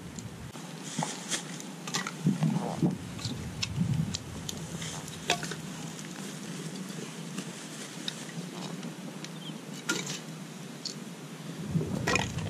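Wood campfire crackling in a steel fire ring, with irregular sharp pops. Near the end there is a louder clatter as a piece of wood is pushed onto the fire.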